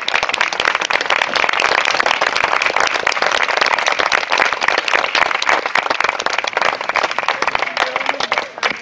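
A crowd applauding, many hands clapping in a dense, steady patter that thins out near the end.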